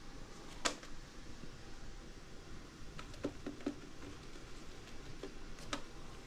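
A border collie puppy scrambling after a tug toy on a hard tiled floor: scattered sharp clicks and taps of claws and toy on the tiles, one louder about half a second in, a quick run of several around three seconds in, and a couple more near the end.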